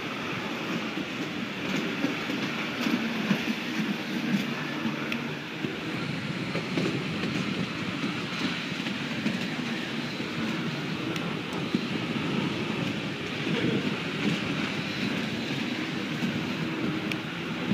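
Inline speed skate wheels rolling on a rink floor: a steady rumble with faint scattered clicks from the skaters' strides.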